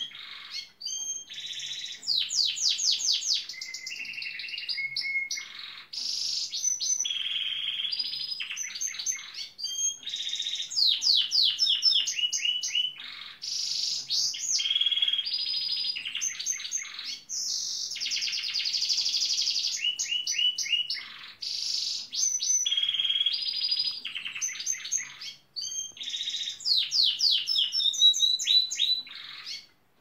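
Gloster canary singing a long, continuous song of rapid trills and fast runs of repeated down-sweeping notes, with short pauses between phrases.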